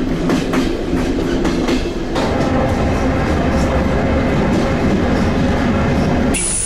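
Soviet-era electrichka (electric commuter train) running along the track, its wheels clacking over the rail joints. About two seconds in, the clacking gives way to a steadier rumble with a humming tone.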